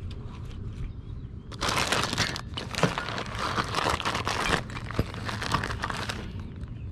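Clear plastic bag crinkling as hands rummage in it for a fishing bobber. The crinkling starts about a second and a half in and stops shortly before the end.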